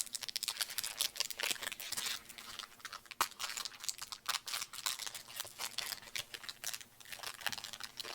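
Crinkling and crackling of an Aero chocolate bar's wrapper being handled and opened: a dense run of small, irregular crackles.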